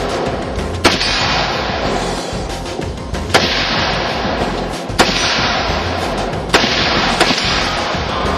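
AR-15-style carbines firing about five sharp shots, spaced a second or more apart, the last two closer together, with music playing underneath.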